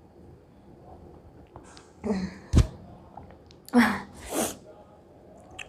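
A woman's sudden, sharp gasping breaths, twice about a second and a half apart, the second followed by a breathy exhale, with a sharp knock between them.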